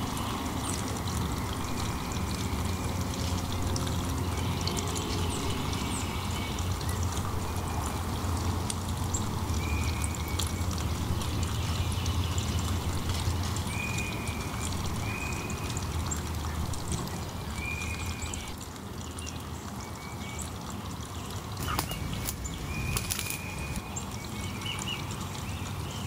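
Woodland ambience: a steady low rumble under a short chirp that repeats every second or two, with a few sharp crackles near the end.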